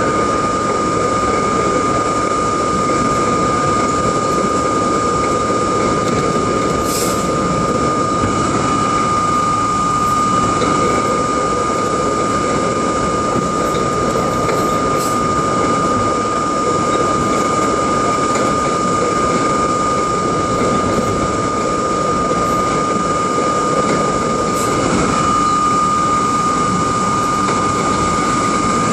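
R32 subway train running at speed, heard from inside the car: a steady rumble of wheels and motors with a constant high whine over it, and a few faint clicks.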